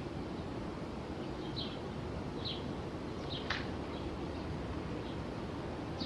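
Quiet outdoor ambience: a steady low hiss, with a few short high chirps from small birds, and one sharp click about three and a half seconds in.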